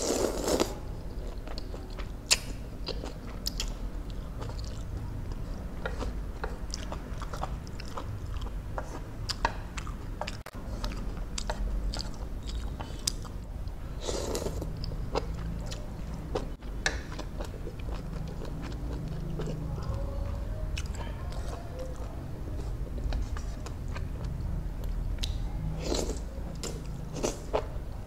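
Close-miked eating: a person slurping instant noodles, with wet chewing and mouth smacks between mouthfuls. Longer slurps come right at the start and about halfway through.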